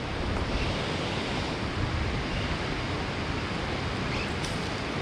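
Swollen river rushing through rapids: a steady wash of fast water.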